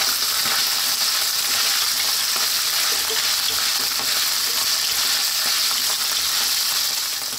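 Canned tuna flakes frying in hot oil in a nonstick wok, a steady high sizzling hiss, while a wooden spatula stirs and pushes them around with faint scraping taps. The tuna is being toasted in the oil.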